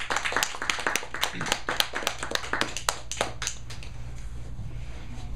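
A small group applauding with hand claps that thin out and die away about three and a half seconds in.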